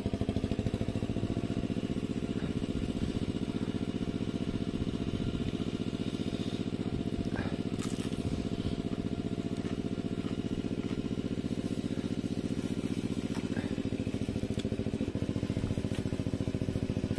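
A small engine running at a steady, even idle, with no change in speed.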